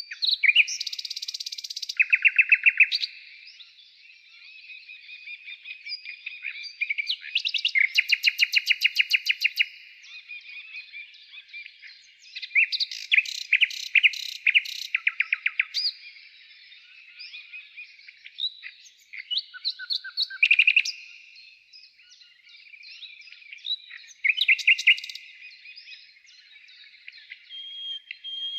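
Small birds singing: phrases of rapid chirping trills, each lasting a second or two, repeated every few seconds.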